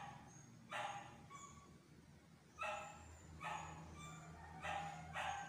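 A dog barking repeatedly: about five short barks at uneven intervals.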